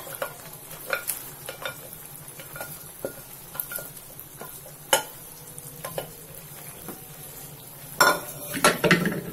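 Grated carrots being scraped out of a steel bowl into a kadhai of hot thickened milk, with scattered metal-on-metal clinks and taps of the bowl against the pan over a low steady hum. About 8 seconds in, a spatula starts stirring, scraping and clattering against the pan.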